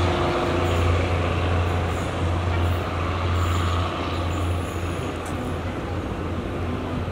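Thai diesel railcar train (THN type) pulling away: a steady low engine hum with track and running noise, slowly fading as it recedes.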